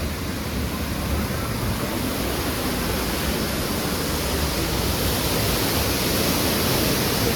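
Steady rushing of falling water, like a decorative waterfall, as an even hiss with no breaks.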